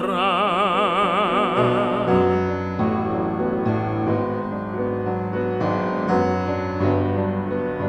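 Operatic tenor holding a sung note with wide vibrato, which ends about two seconds in; grand piano then carries on alone with a flowing accompaniment.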